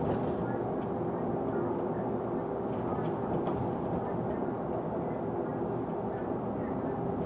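Bus running, heard from inside the passenger saloon: a steady whine held at one constant pitch over the engine and road noise.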